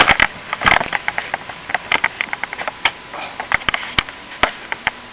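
Handling noise: irregular clicks, knocks and a few brief rustles, busiest in the first second and thinning out toward the end.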